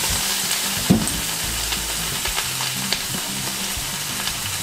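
Bok choy sizzling in hot oil in a frying pan as it is stirred. A slotted spoon knocks sharply against the pan about a second in, then clicks lightly a few more times.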